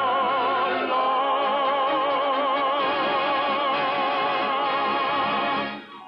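A male baritone voice holding the final note of a show tune with a wide vibrato, over a full orchestra. The note and the orchestra stop together near the end.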